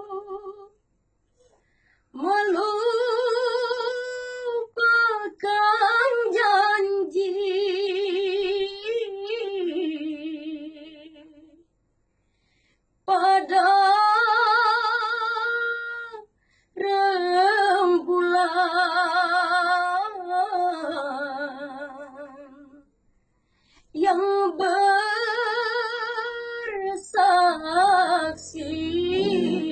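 A woman singing a dangdut song unaccompanied, in long held phrases with wide vibrato and ornamental turns. There are short pauses for breath between the phrases.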